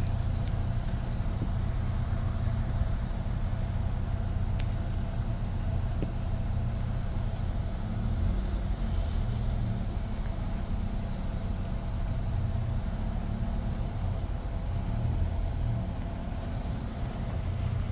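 A Chevrolet's engine idling, heard from inside the car's cabin as a steady low hum.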